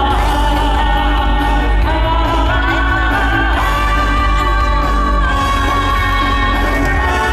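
Loud show music with singing voices and a choir-like sound over a steady deep bass, the melody held and shifting in long notes.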